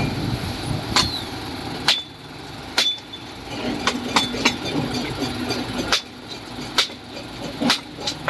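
An engine running steadily under sharp metallic knocks that come every second or so, irregularly: machinery and work noise at a concrete pour.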